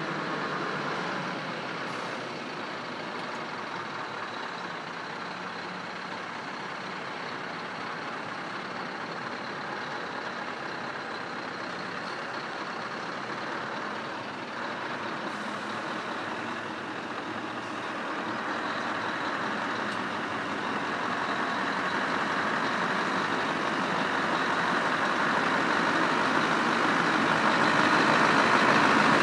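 Scania R620 timber truck's V8 diesel running under way, a steady engine and road noise that grows louder over the last ten seconds or so.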